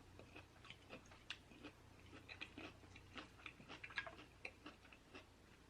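Faint close-up chewing: many small, irregular mouth clicks and smacks.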